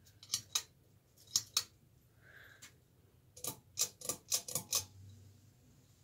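Sharp clicks from the pull-chain switch and beaded chain of a Hunter Pro's Best ceiling fan: two quick pairs, then a fast run of about six, over the faint low hum of the running fan motor.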